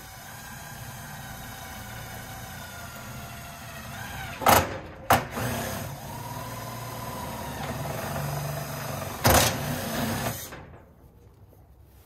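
Electric drill running with a 5/32 bit, drilling a pilot hole through the overlapping corrugated painted steel fence panels. It runs steadily for about ten seconds with three brief, much louder bursts partway through, then stops.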